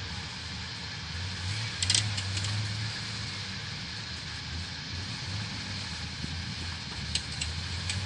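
Mud-covered jeep's engine running low and steady as it edges through a mud hole, with a few sharp clicks about two seconds in and again near the end.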